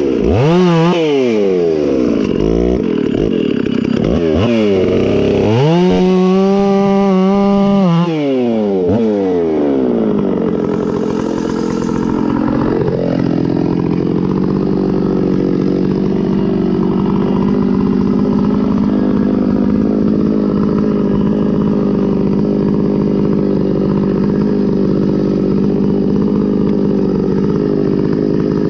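Stihl 066 Magnum two-stroke chainsaw, just after a top-end rebuild, revved up and down several times with a short hold at full throttle. After about 13 seconds it settles into a long steady pull at lower engine speed, as under load in a cut.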